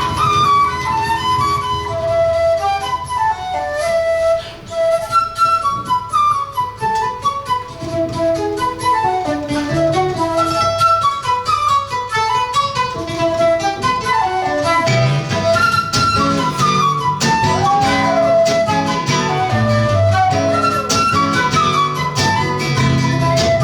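Live duo of flute and seven-string guitar playing: the flute carries a melody of quick runs over plucked guitar accompaniment. The guitar's low notes grow fuller about two-thirds of the way in.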